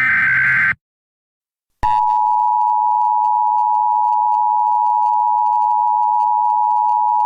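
Emergency Alert System SAME tones: the last buzzy digital header burst ends under a second in. After about a second of silence, the loud steady EAS attention tone starts, signalling that the alert's spoken message follows.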